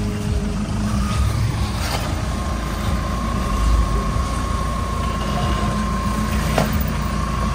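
Off-road SUV engine running at low revs as it crawls over rocks, with a steady high-pitched tone joining a couple of seconds in and a couple of sharp knocks.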